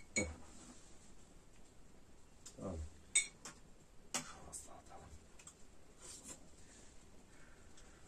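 Metal spoons clinking against metal bowls and a metal serving tray during a meal, a scattering of short separate clinks.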